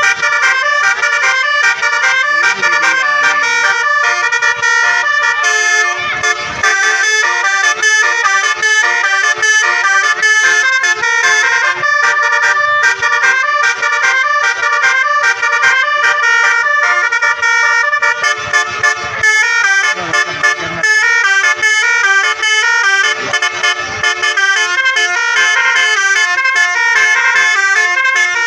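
Telolet (basuri) multi-tone bus horns playing fast melodic tunes, the notes changing rapidly with hardly a pause, briefly dipping about six seconds in and turning choppier around twenty seconds in.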